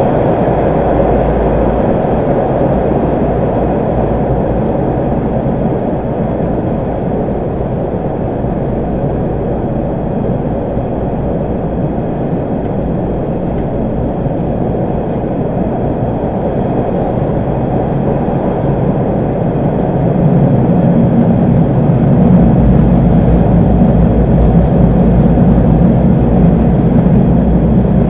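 Hawker Siddeley 01200 series subway car running, a loud, steady rumble of motors and wheels on rail. About twenty seconds in it grows louder, with a deeper drone added.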